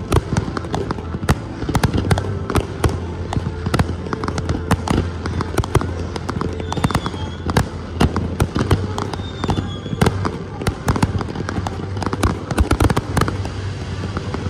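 Aerial firework shells bursting in a dense, irregular barrage of bangs and crackles over a steady low rumble.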